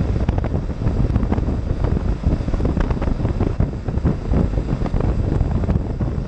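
Wind buffeting the camera's microphone on a BMW G650GS motorcycle at road speed, over a steady low rumble from the running bike.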